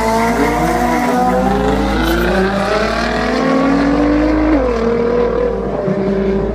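Two drag-racing cars accelerating hard away from the start line, their engines revving up through the gears. The engine note climbs steadily and drops sharply with a gear change about four and a half seconds in.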